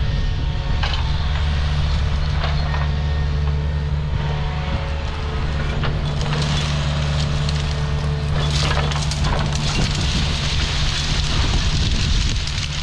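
Excavator's diesel engine running steadily under load while its rake tears through brush and small trees, with scattered wood cracking and snapping on top.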